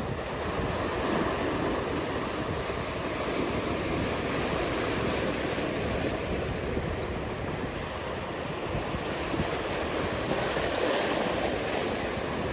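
Ocean surf: a steady rushing wash of breaking waves, swelling gently, with some wind noise.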